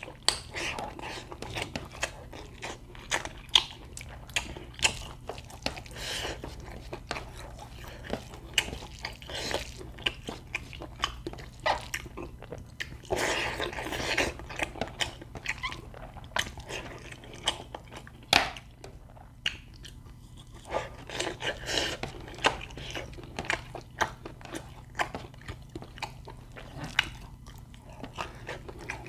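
A person chewing and biting food close to the microphone: irregular wet smacking clicks and short crunches, over a steady low hum.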